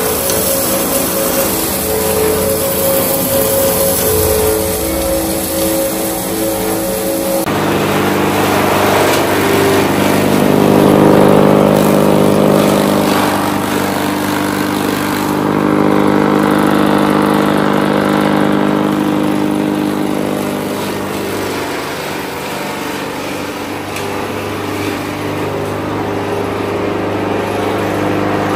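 Electric-motor-driven domestic flour mill (atta chakki) running steadily as it grinds grain into flour. About seven seconds in the sound changes suddenly to the same motor driving a chaff cutter, running steadily as green fodder is fed in and chopped.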